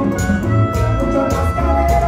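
Live band playing tropical Latin dance music, with a steady bass line, regular percussion and held melody notes.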